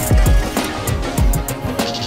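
Background music with a steady drum beat, heavy kick drum and crisp high hits over sustained instruments.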